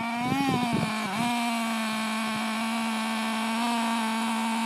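Small engine of a radio-controlled car revving up and down, with a few knocks in the first second, then running on at one steady pitch.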